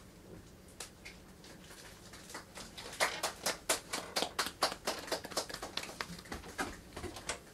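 A few people clapping by hand, starting about three seconds in as a quick run of separate sharp claps, about four or five a second, over a faint steady hum.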